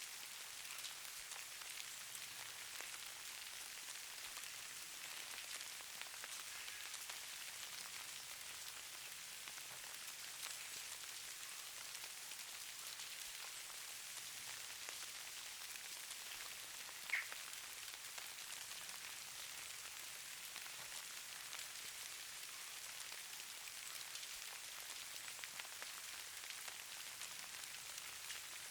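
Steady, fine pattering hiss of falling precipitation, snow or fine rain, landing on a surface, with faint scattered ticks and one sharper tick about 17 seconds in.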